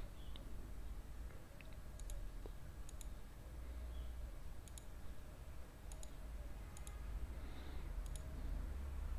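Computer mouse clicking about six times, each click a quick double tick, over a low steady hum.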